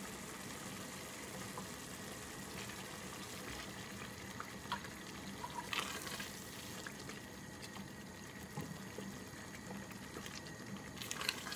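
A wooden spoon stirring thick tomato and garlic sauce in a stainless steel pot, just after vinegar has been added: a quiet, steady wet sound with a few small clicks of the spoon, a little louder about halfway through.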